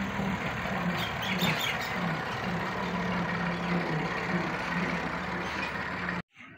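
A motor or engine running steadily, a dense rushing noise over a low, slightly wavering hum. It cuts off abruptly near the end, leaving faint bird chirps.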